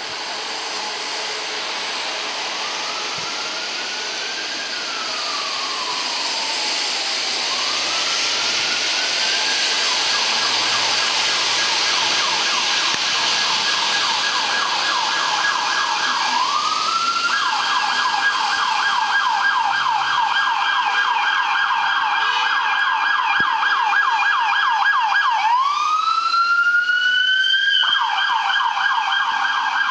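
Electronic sirens of FDNY fire vehicles responding. A siren wail rises and falls, then switches to a rapid yelp that grows louder as the units approach. A second, higher-pitched siren joins about two-thirds of the way through, and both briefly go back to a rising wail before returning to yelp.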